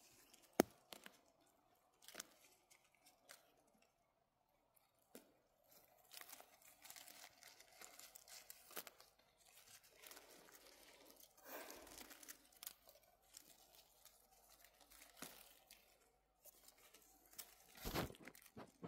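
Faint rustling and crackling of moss and forest litter as mushrooms are picked by hand. A few sharp snaps are scattered through it, with a busier stretch of rustling in the middle and a louder crunch near the end.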